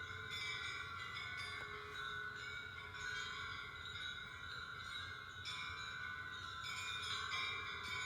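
Chimes ringing: many overlapping metallic tones, struck again and again at irregular moments.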